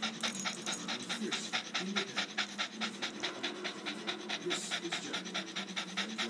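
A Boston terrier panting hard and fast in a quick, even rhythm of several pants a second, tongue out, out of breath after a bout of running exercise.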